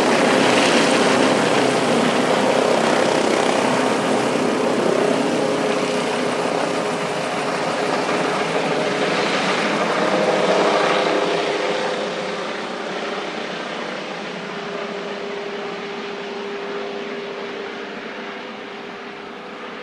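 Airbus H145 D3 helicopter with a five-blade main rotor, its rotor and turbine noise a dense rush over a steady hum. It grows steadily fainter over the second half.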